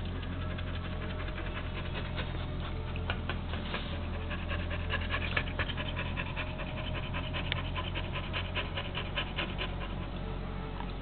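A Eurasier mother dog and her week-old puppies making a quick, irregular run of short, soft clicks and breaths, strongest in the middle, over a low steady hum.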